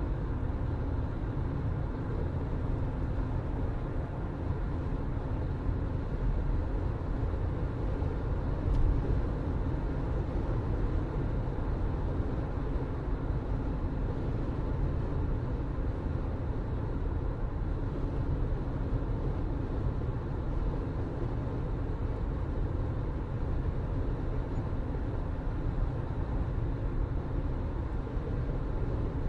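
Steady low rumble of a moving vehicle, with a brief bump about nine seconds in.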